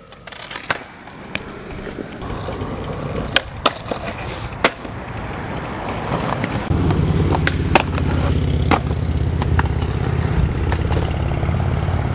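Skateboard wheels rolling on pavement, with sharp clacks of the board striking the ground scattered throughout. The rolling rumble grows louder about two-thirds of the way in.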